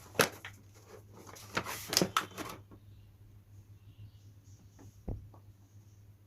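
Plastic toy kitchen pieces and packaging being handled: a sharp click just after the start, a quick run of clattering knocks about two seconds in, and a single dull thump near the end.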